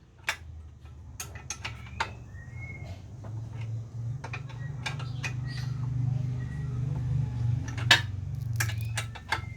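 A polishing machine's low, steady hum that grows louder after a few seconds, with scattered metallic clinks and knocks from work on the machine, the loudest near the end. A few short bird chirps sound in the background.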